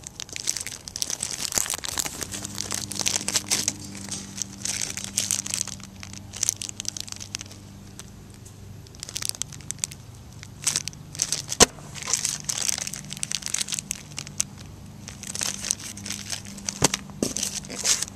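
Small clear plastic bags crinkling in irregular bursts as they are handled over and inside a cardboard shoebox, with one sharp click about two-thirds of the way through. A faint steady low hum sets in about two seconds in.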